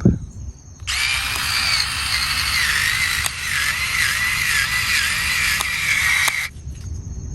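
HOTO NEX O1 Pro 3.6 V cordless electric screwdriver driving a screw into a pre-drilled hole. Its motor whines for about five and a half seconds, the pitch sagging and wavering under load, with a few ticks, then stops suddenly as the screw seats.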